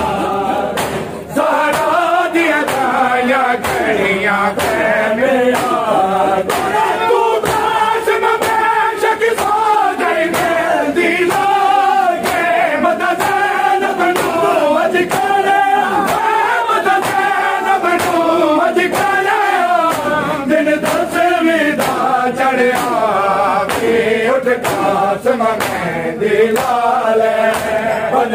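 A group of men chanting a noha in unison, with a steady beat of sharp slaps from matam, mourners striking their chests in time with the chant.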